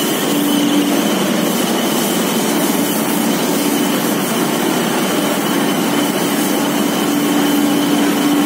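Cotton waste recycling machinery running: loud, steady machine and blower noise with a hum that comes and goes and a faint high whine.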